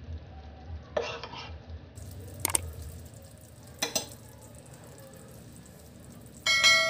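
Metal spoon scraping and clinking against a frying pan as gravy is poured and spooned out of it, with a couple of sharp clinks. Near the end a bright bell chime rings out and fades, a notification-bell sound effect.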